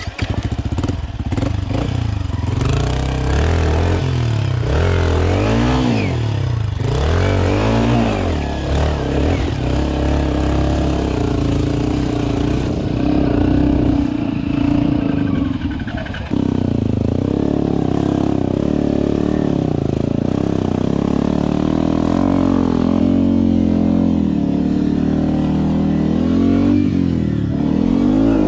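Yamaha WR155R trail bike's single-cylinder engine revving up and down repeatedly as it is ridden over a rutted dirt trail. The engine sound changes abruptly about halfway through.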